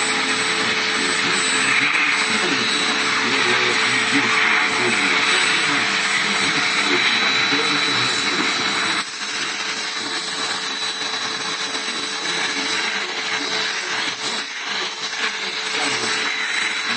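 Vacuum cleaner running steadily: a loud, even whooshing with a constant whine, dipping briefly about fourteen seconds in.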